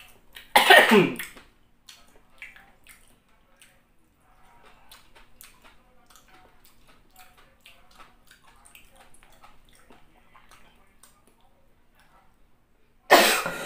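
A man coughing from the heat of spicy soup: a hard cough about half a second in, then two more near the end. Between them are faint, wet chewing and eating sounds.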